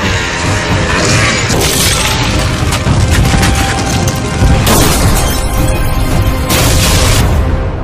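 Dramatic trailer music with crash and explosion sound effects cut into it: three loud hits, about 2 s, 5 s and 7 s in.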